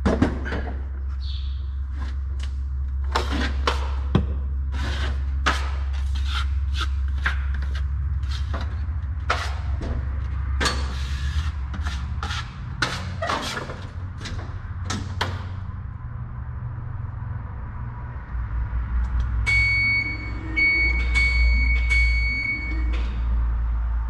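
Drywall knife strokes scraping joint compound over fire tape on drywall, many quick scrapes over a steady low hum. Near the end a scissor lift's motion alarm beeps several times as its motor runs.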